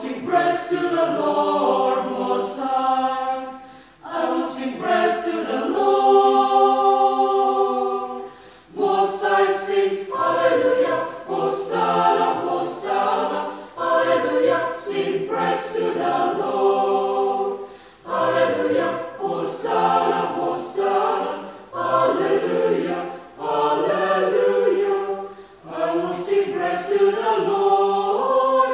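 Church choir of mixed voices singing a hymn in English, in phrases with brief breaks between them.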